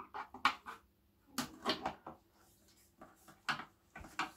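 Knocks, clicks and scrapes of a small speaker cabinet being handled and taken apart, in four short clusters.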